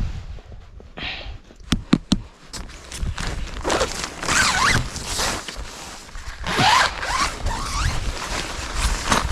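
A zipper being pulled in long rasping strokes, about three and a half seconds in and again near seven seconds, after a few sharp clicks about two seconds in.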